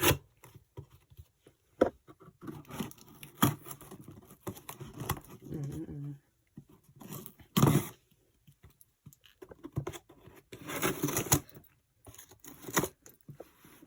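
Hands tearing open and rummaging through a shipping package: packaging ripping and crinkling, with scattered taps and rustles, and a longer stretch of tearing near the end.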